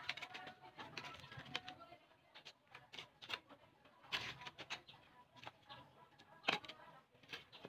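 A shovel scraping and chopping into dry soil and stones: a scatter of irregular clicks and scrapes, with one sharper knock about six and a half seconds in.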